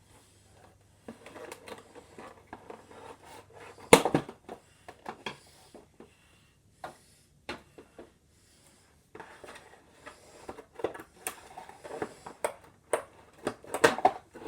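Plastic toy blasters and their packaging being handled, with scattered clicks and rustles and a sharp knock about four seconds in.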